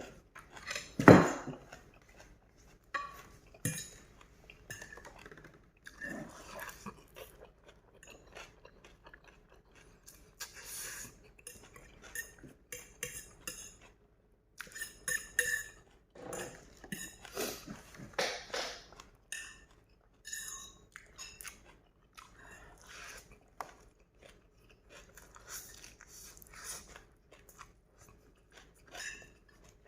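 Close-miked eating: noodles chewed in irregular bouts, with cutlery clinking against a bowl. A louder thump about a second in.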